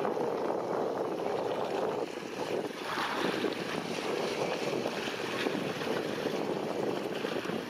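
Wind rushing over the microphone on open water, with waves lapping and splashing, a steady noisy rush that swells briefly about three seconds in.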